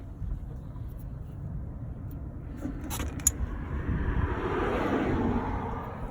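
A car passing by: its tyre and engine noise swells in the second half and fades near the end, over a steady low rumble. A few light clicks are heard earlier.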